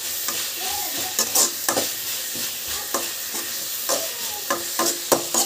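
Dried fish sizzling as it is dry-roasted in a metal kadai, with a spatula stirring and scraping against the pan in sharp strokes every half second or so.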